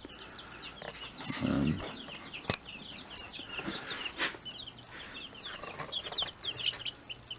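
Baby chicks peeping: many short, high, falling peeps in quick succession, with a sharp click about two and a half seconds in.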